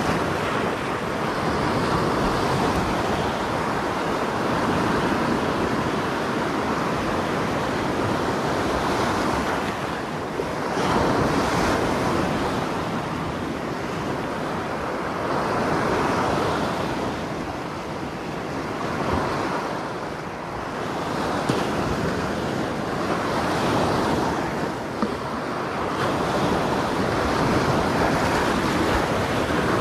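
Sea surf breaking and washing over shore rocks, a loud rushing that swells and eases every few seconds.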